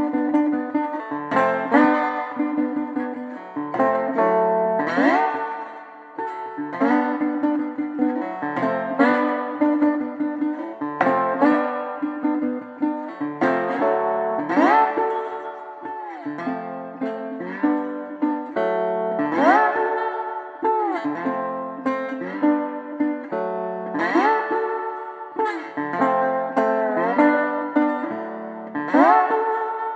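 Instrumental music on plucked guitar, with notes that repeatedly slide up and down in pitch.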